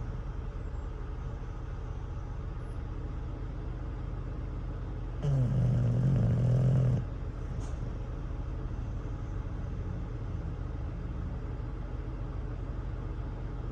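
English bulldog snoring in its sleep: one long, low snore about five seconds in. Under it runs a steady low rumble of idling trucks.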